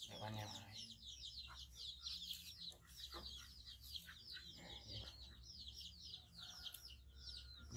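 Birds chirping faintly in a continuous stream of quick, high, falling notes, several a second, over a low steady hum.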